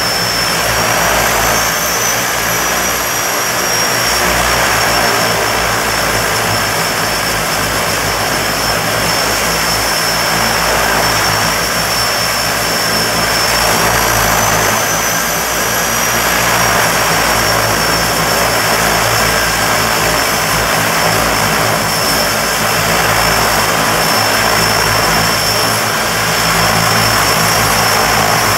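DHC-6 Twin Otter floatplane's turboprop engines running, a steady propeller roar under a high turbine whine. The whine rises briefly twice, about a second and a half in and again about fourteen seconds in, then settles back.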